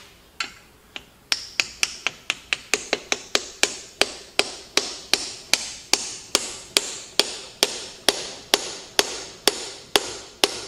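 Hand hammer tapping steadily at the hub of a wood chipper's twin-disc clutch as it is driven onto its tapered, keyed shaft: two taps, then from about a second in a steady run of sharp strikes, roughly three a second, each with a short ring.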